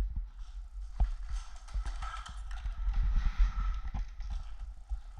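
Footsteps: irregular low thuds of a person moving, with a steady rustle over them.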